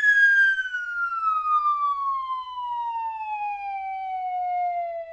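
Slide whistle playing one long, slow downward glide in pitch, from a high note to a fairly low one, with a breathy edge near the start: the cartoon sound of something falling.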